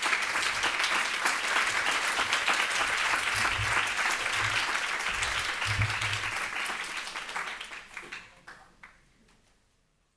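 Audience applauding, a dense crackle of many hands clapping that fades away near the end.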